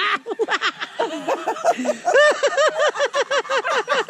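Laughter: a long run of quick ha-ha notes, about five a second, growing louder about halfway through.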